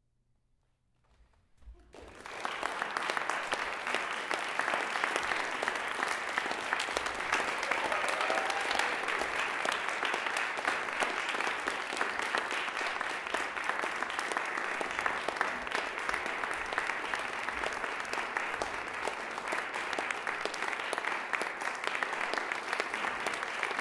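Audience applause, breaking out about two seconds in after a moment of near silence and then continuing steadily.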